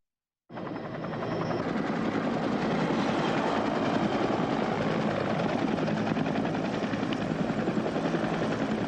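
Helicopter flying, its rotor blades beating a fast, even chop over the turbine noise. It starts abruptly about half a second in and then holds steady.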